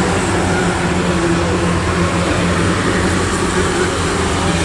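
Engines of cars racing on a dirt speedway track, a loud, steady engine noise with no sudden events.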